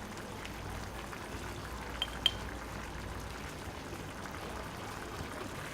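Chickpea curry gravy simmering in a pot on high heat, a steady low bubbling with faint crackles. Two sharp clinks sound about two seconds in.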